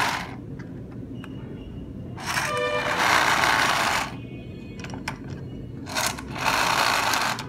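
Battery-powered toy police car's electronic sound effects: loud hissing bursts with a few electronic tones, two of them about two seconds long and a few seconds apart, over a steady low motor hum and faint clicks.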